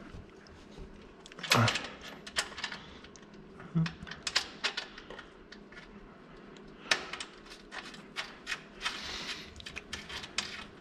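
Irregular metallic clicks and clinks of a socket wrench and bolts being worked on a frame brace, with a louder clank about one and a half seconds in and a run of quicker clicks later on.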